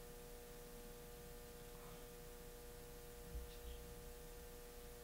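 Quiet room tone with a faint steady hum and a soft bump about three and a half seconds in.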